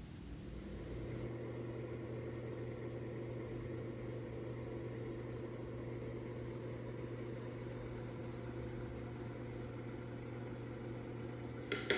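A steady low hum made of several even, unchanging tones.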